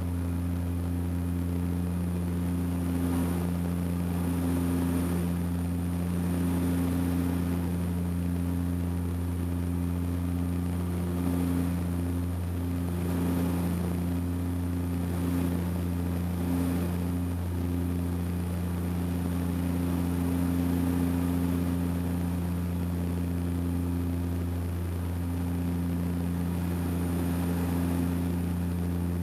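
Seaplane's turboprop engine and propeller running steadily in flight, heard from inside the cabin: a constant low hum with a fainter hiss above it.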